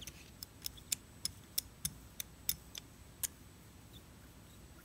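Hand brayer rolling over a gel printing plate inked with tacky acrylic paint, giving a run of light, sharp ticks about three a second that die away near the end.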